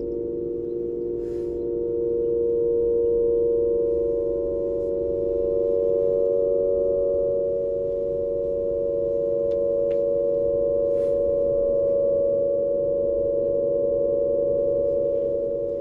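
Aeolian harp strings set sounding by the wind: a steady drone of several held tones and their overtones, swelling gently and wavering slightly in the second half.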